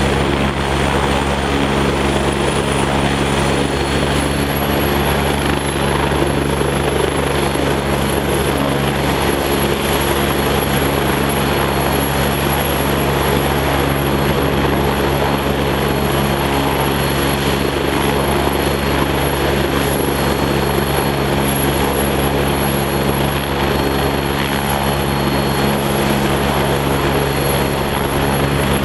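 Agusta A109 twin-turbine air-ambulance helicopter running on the ground with its rotors turning before lift-off. A high turbine whine climbs in pitch over the first few seconds and then holds steady over the even drone of the rotor and gearbox.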